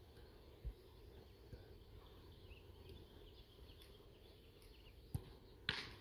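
Faint open-air ambience with a low thump about a second in and two brief sharp knocks near the end, the second the loudest.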